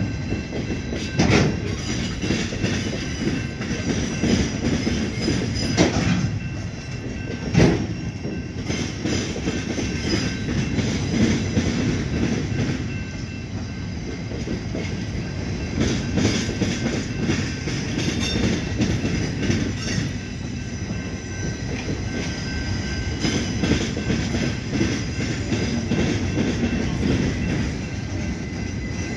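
Work train of flatcars loaded with track-maintenance machines rolling past: a steady rumble of steel wheels on the rails, with a few sharp clacks at rail joints, loudest about a second in and again around six and seven and a half seconds, and a faint thin high squeal running through it.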